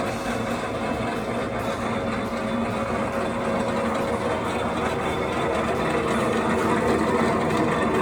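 A 40 mm geared pillar drilling machine running steadily, its motor and gearbox giving a continuous hum with a few fixed tones, growing slightly louder near the end.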